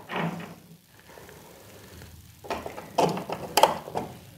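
Batteries being pushed into a toy's plastic battery compartment against its spring contacts: a brief rustle of handling at the start, then about two and a half seconds in a quick run of small plastic clicks and scrapes.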